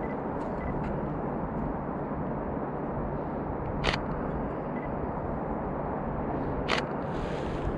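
Nikon D610 DSLR shutter firing twice, about three seconds apart, each a single sharp click, over steady wind noise on the microphone.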